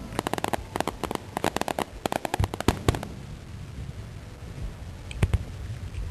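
Aerial fireworks bursting: a fast run of sharp crackling bangs for about three seconds, then quieter, with two more cracks a little after five seconds.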